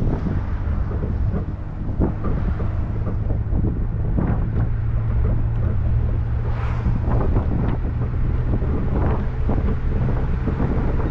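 Boat's engine running at a steady pitch, with wind buffeting the microphone and water splashing irregularly along the hull.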